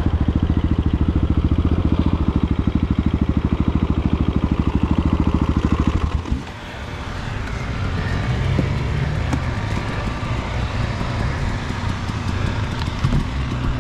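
Dirt bike engine idling with an even, rapid low thumping that stops abruptly about six seconds in. A quieter, uneven engine noise carries on after it.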